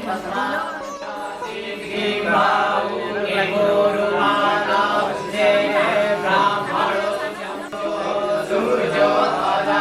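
A group of voices chanting Sanskrit puja mantras together in a continuous, sing-song recitation.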